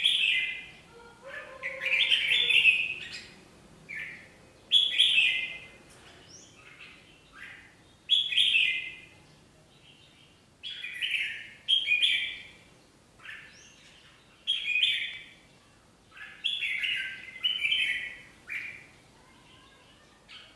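Caged red-whiskered bulbuls singing loud short song phrases, repeated about every two seconds, as a decoy bird and a wild-caught pair sing against each other in a territorial contest.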